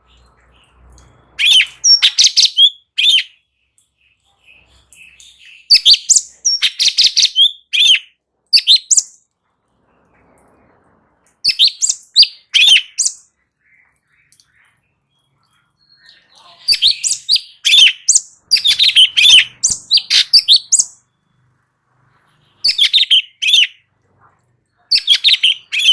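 Cucak cungkok, a bulbul, singing loud bursts of rapid chattering, warbling notes, six phrases of one to four seconds with brief pauses between them.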